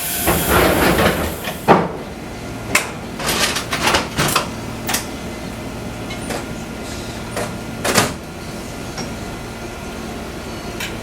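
Fukui Railway 200-series railcar heard from inside: a loud hiss of air for about a second and a half, then a scatter of sharp knocks and clunks over the next several seconds, typical of the car's doors and gear working.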